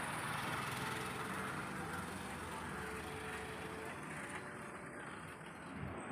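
Steady outdoor background noise: an even rushing hiss with a faint hum under it, easing off slightly near the end.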